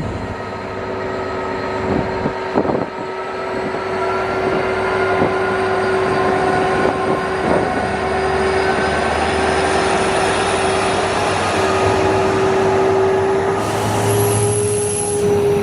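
Class 66 diesel locomotive's two-stroke V12 engine running under load as it hauls an eight-coach sleeper train, a loud steady drone whose pitch rises slowly. A few knocks about two to three seconds in.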